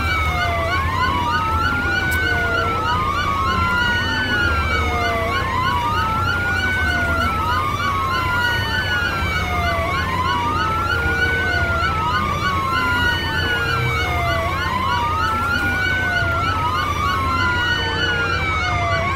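Electronic siren wailing, rising and falling in pitch about every two seconds, with a second siren pattern layered over it and a steady low hum underneath.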